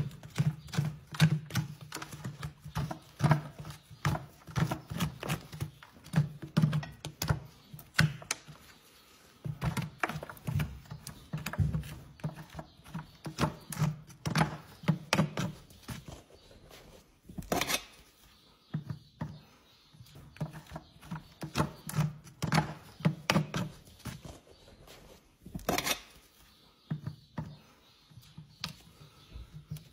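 Packed dirt and manure being scraped and picked out of a horse's hoof sole: a run of irregular scraping strokes and small knocks with brief pauses, and a couple of sharper knocks about two-thirds of the way through and near the end.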